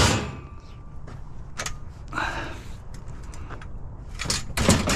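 Heavy scrap metal pieces, apparently parts of a shelf frame, being handled: a sharp clang at the start, a scrape about two seconds in, and more knocks and clanks near the end.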